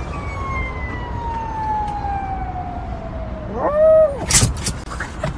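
Small dog howling like a siren: one long note sliding slowly down in pitch, then a shorter, louder howl that rises and falls about four seconds in, followed by a brief clatter.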